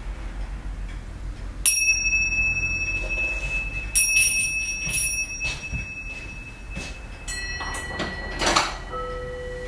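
A small Wenchang pagoda ornament being struck several times, each tap leaving a clear, high ringing tone that lingers for seconds. Near the end a lower pair of tones rings out, after a brief brushing sound.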